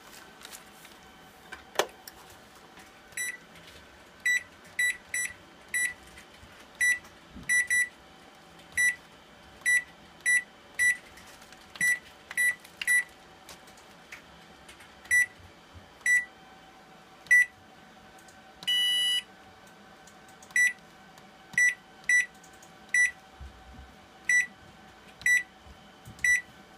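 Touch control panel of an over-the-range microwave giving a short electronic beep at each key press as its buttons are tested one by one, in an irregular string of about two dozen beeps. One longer beep comes about two-thirds of the way through, and there is a single sharp click about two seconds in.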